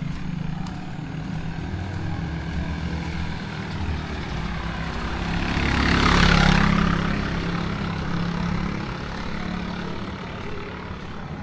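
A motor vehicle drives past, its engine hum and tyre noise swelling to a peak about six seconds in and then fading away.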